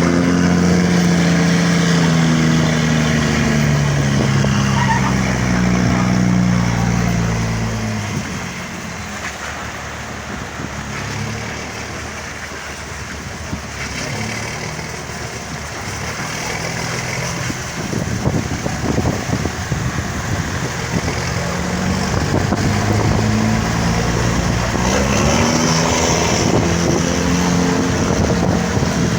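Bus diesel engine roaring as it pulls away, its pitch climbing and dropping through the gears for the first several seconds. It goes quieter for a while, then climbs again as it accelerates near the end.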